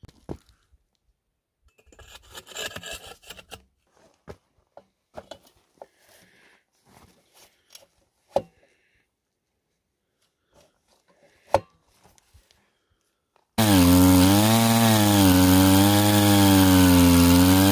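A few faint scuffs and sharp knocks from handling the drill rod, then, suddenly about three-quarters of the way through, the small two-stroke engine of a Shaw backpack core drill starts running loudly, its pitch wavering up and down as it turns the diamond core bit in rock.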